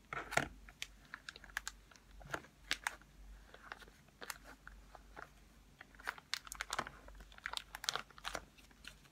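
Thin plastic film lid being peeled and handled on a freshly microwaved instant rice tray: irregular crinkling and crackling clicks.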